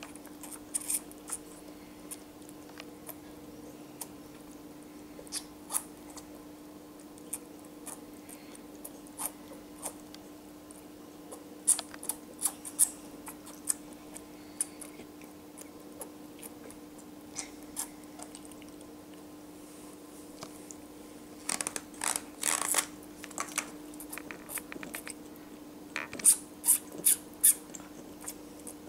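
Baby wombat suckling milk from a syringe with a rubber teat: irregular short wet smacking and sucking clicks, busiest about two-thirds of the way in and again near the end, over a steady low hum.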